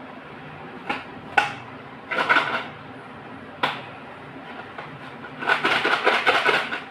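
Small cardboard boxes of slate pencils handled on a plastic plate: a few sharp taps as the boxes are set down, and two rattling bursts of quick clicks, the longer one near the end as the boxes are picked up and tipped.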